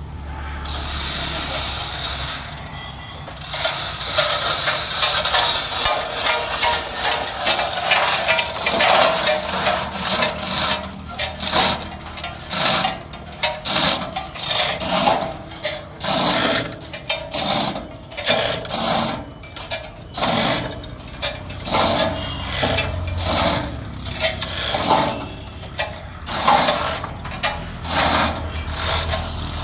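Hand chain hoist (chain block) being hauled to lift a heavy log: the steel chain rattles and clicks through the block in a steady rhythm of pulls, over a low engine hum.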